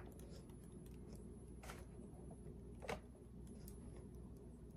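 Near silence: quiet room tone with a low hum and a few faint clicks, the loudest about three seconds in.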